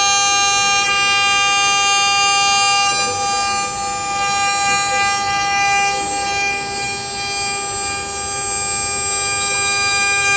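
6090 mini CNC router engraving wood: the spindle runs with a steady high whine over a hiss of cutting noise, dipping a little in level now and then as the cut goes on.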